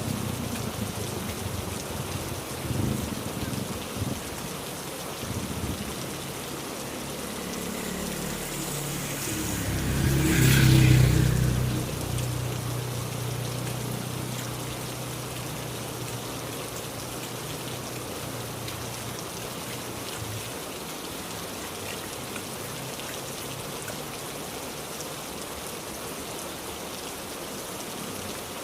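Heavy rain falling steadily, with a louder low rumble swelling about ten seconds in and fading away over the following several seconds.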